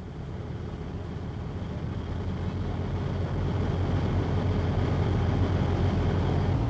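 Ship's engine running with water rushing in its wake: a steady low rumble that grows gradually louder.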